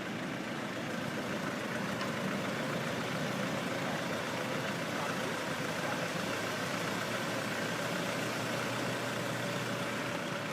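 Engine of a heavy machine running steadily at an even speed, with no revving or sudden knocks.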